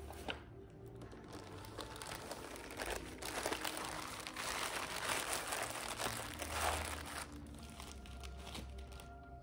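Plastic packaging crinkling and rustling as it is handled. It builds up, is loudest through the middle few seconds, and dies down near the end.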